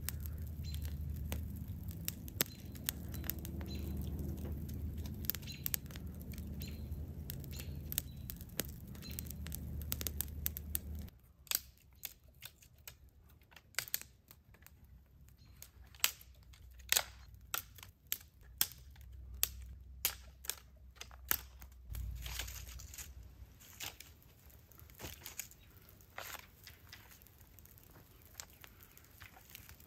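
Dry sticks snapped by hand one after another, sharp cracks a second or so apart, as kindling is broken for a small campfire. For about the first third a low rumble runs under them, which stops suddenly.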